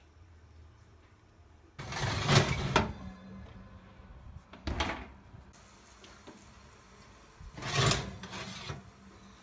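Oven door and metal baking tray being handled: three bursts of rattling and scraping, the loudest about two seconds in, a short one near five seconds, and another around eight seconds as the tray is drawn out along the oven rack.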